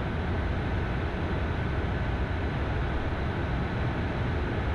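Steady cockpit noise of an Embraer Phenom 300 light jet in a climb: an even rush of airflow and engine hum, with a faint steady high tone running through it.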